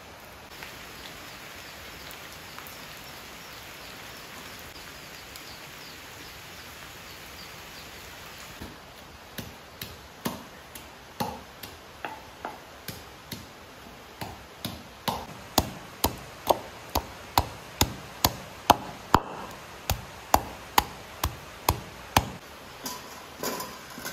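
A knife chopping on a cutting board: scattered strokes about a third of the way in, then a steady chopping of about two strokes a second that grows louder.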